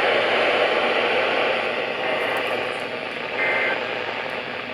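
Steady radio static hiss from an EAS broadcast. In the second half come short two-tone digital data bursts, about a second apart, typical of the EAS end-of-message (SAME) code sent after the spoken warning.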